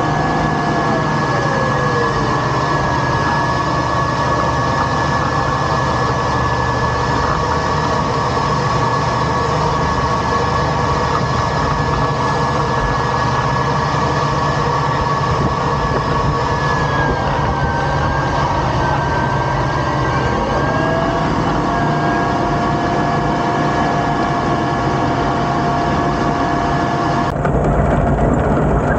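Tractor-drawn row-crop planter running through corn stalk residue, heard close up from the planter frame: steady mechanical running noise with a held whine. The whine drops in pitch about a second in and climbs back up around twenty seconds in; near the end the high whine drops away and a lower, rougher rumble of soil and row units takes over.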